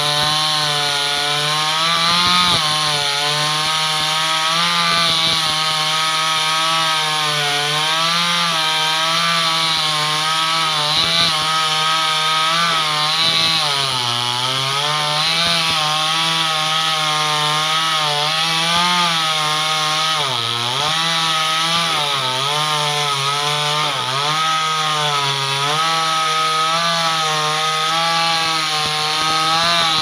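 Two-stroke petrol chainsaw running at full throttle with its chain cutting through a mango tree trunk. The engine pitch wavers under load and sags now and then as the chain bites into the wood, most clearly twice in the middle.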